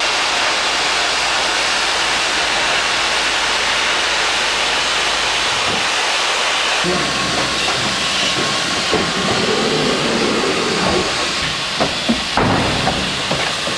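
A steady, loud hiss that starts abruptly, with a low hum joining about halfway through and a few short knocks near the end.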